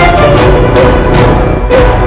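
Soundtrack music with a melody of held notes over a steady beat.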